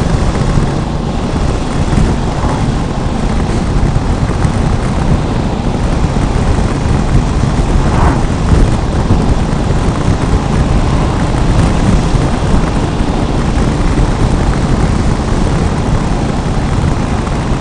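Wind buffeting the microphone of a motorcycle moving at road speed, a loud, steady rumbling rush over the bike's engine and tyre noise.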